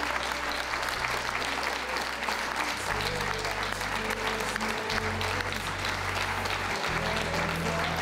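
Audience applauding over background music with a bass line that moves to a new note every couple of seconds.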